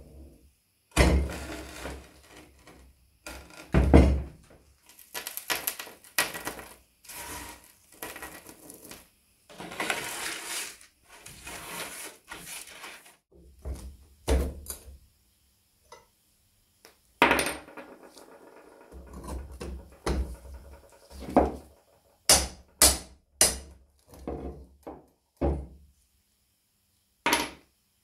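Hand-tool work on an old wooden cannon carriage: a nail puller prying at the nails and rusty iron strap. It is heard as irregular stop-start knocks, metal clinks and stretches of scraping.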